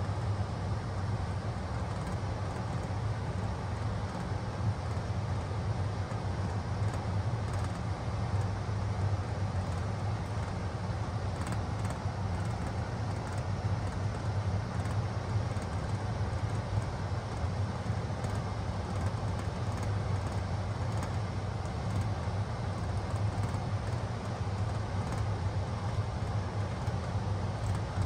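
2016 Bard 4-ton wall-hung heat pump running steadily in heat mode: an even rush of fan air over a steady low hum.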